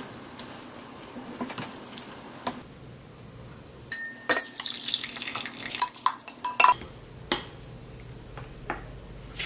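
Wooden spoon scraping and tapping against a stainless steel pot and serving dishes as braised pork is spooned out: light scattered clinks at first, then busier clatter with a few sharp knocks from about four seconds in.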